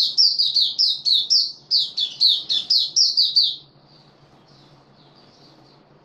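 White-eye singing a fast run of high, downward-sliding notes, about five a second, that stops abruptly about three and a half seconds in, followed by a few soft, quieter notes.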